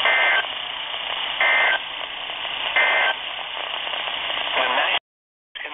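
NOAA Weather Radio broadcast through a Midland weather radio's speaker: three short two-tone data bursts about 1.4 s apart over steady static hiss, the SAME end-of-message code closing a flood alert. The hiss cuts off abruptly near the end.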